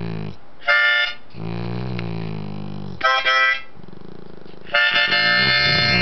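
A harmonica playing short chords, alternating with a dog's low, wavering hum-like howl that bends up and down in pitch between the chords.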